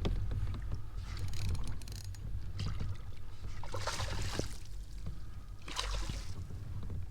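Water splashing and sloshing around a kayak while a hooked redfish is fought, with a steady low rumble underneath. Two louder splashy rushes come about four and six seconds in.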